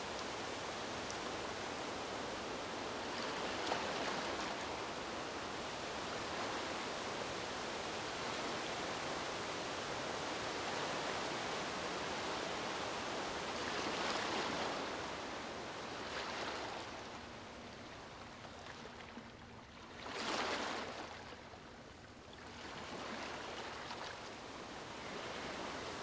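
Gentle lagoon waves lapping, with breeze in palm trees: a steady hiss that swells several times. It turns quieter about seventeen seconds in, broken by a short surge.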